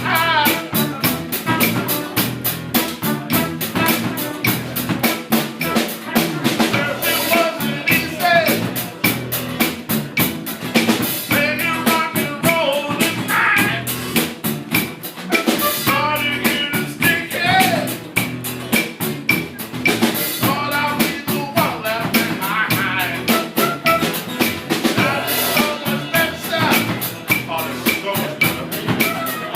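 Live band playing, with a drum kit keeping a steady beat of snare and bass drum under the other instruments.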